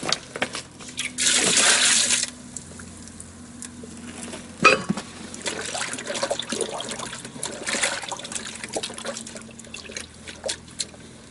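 Cooled spice brew poured from a steel pot into salt brine over carp, splashing for about a second, then hands stirring and sloshing among the fish in the brine, with a few short splashes.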